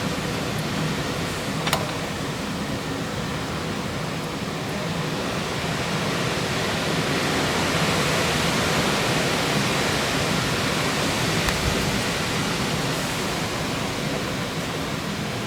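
Strong wind gusting, an even rushing that builds to its strongest midway and then eases. A brief faint click sounds about two seconds in.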